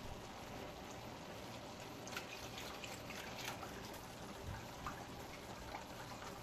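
Whisk stirring milk into a butter-and-flour roux for béchamel sauce in a saucepan: faint wet sloshing with scattered light clicks of the whisk against the pan, thickest in the middle.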